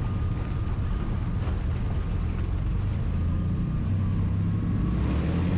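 Twin piston engines of a Grumman Widgeon flying boat running at high power at the start of a water takeoff run, a steady low drone that slowly builds.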